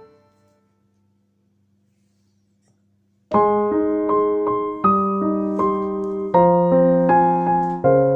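Background music: the previous piece fades out, near silence for about three seconds, then a slow piano melody begins with sustained chords.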